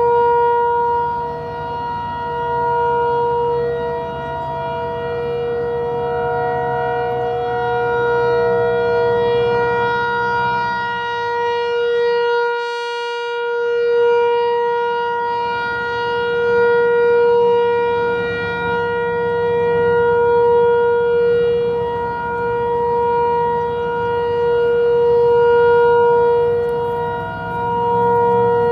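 Federal Signal 508-128 rotating electromechanical warning siren sounding its steady full-alert tone. The pitch holds level while the loudness swells and fades every few seconds as the turning head points toward and away.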